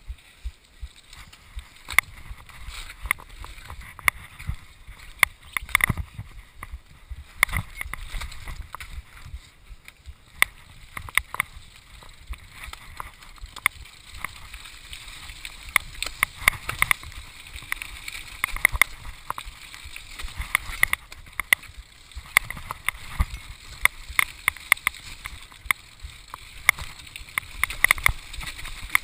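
Mountain bike ridden fast down a rough dirt trail: a steady low rumble of tyres and wind, broken by frequent sharp knocks and rattles as the bike hits roots and bumps, busier in the second half.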